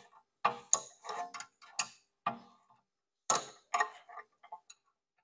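Ratchet wrench clicking in short, irregular runs as it is swung back and forth on a brake caliper bolt.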